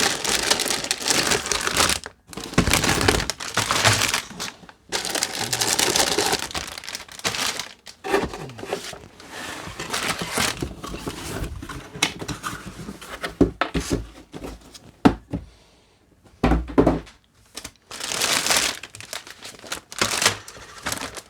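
Plastic bags and packaging crinkling and rustling as kit parts are unpacked from a box, with a few knocks as pieces are set down.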